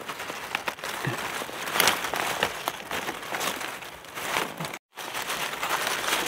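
Dry fallen leaves and twigs crackling and rustling as a gloved hand pushes through the leaf litter, with many small sharp clicks. The sound drops out briefly a little before the end.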